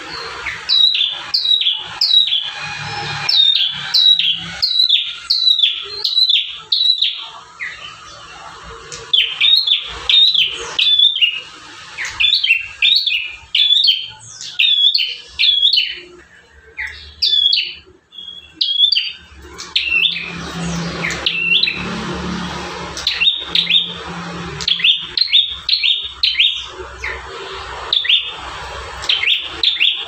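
Caged tailorbird (prenjak tamu) calling loudly: rapid series of sharp, downward-sweeping chirps, about two a second, broken by short pauses. A low background rumble comes in about two-thirds through.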